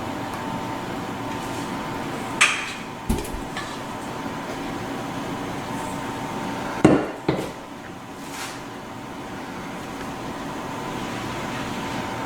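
A few sharp knocks of a utensil against cookware, about four, as cheesecake batter is scraped from the mixing bowl into a springform pan, over a steady background hum.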